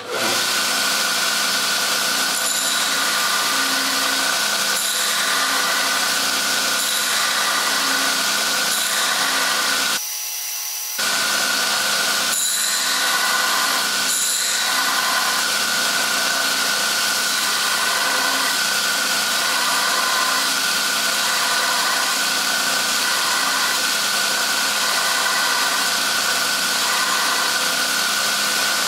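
Coote 72-inch belt grinder running steadily with a 60-grit belt, a hardened steel knife blade held against the belt at the contact wheel to grind a line along its back. The sound drops out for about a second about ten seconds in.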